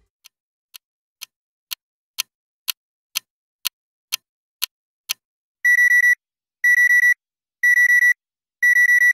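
Clock ticking about twice a second, getting louder, then about halfway through a digital alarm clock goes off: high-pitched beeps in rapid groups of four, one group a second, much louder than the ticks.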